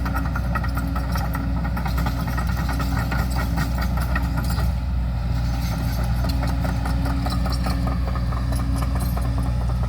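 Backhoe engine running steadily, with a whine that cuts in and out several times as the machine works.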